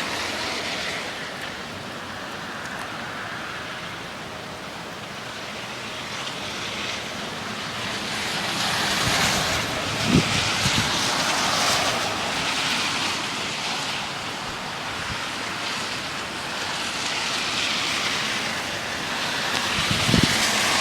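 Strong thunderstorm straight-line winds gusting, a rushing noise that swells and eases, with wind buffeting the microphone. A short thump sounds about halfway through.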